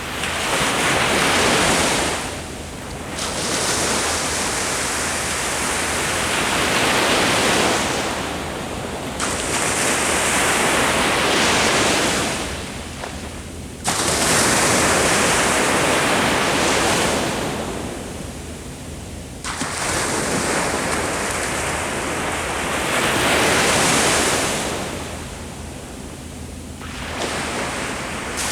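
Ocean waves breaking on the shore and washing back, a rushing surf that swells and ebbs about every five or six seconds, with two sharp surges partway through.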